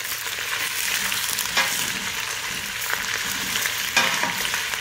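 Chopped onions, carrots, celery and garlic sizzling in hot olive oil in a stainless steel stock pot as they are stirred with a wooden spoon. The spoon clacks against the pot a couple of times, loudest about a second and a half in and near four seconds in.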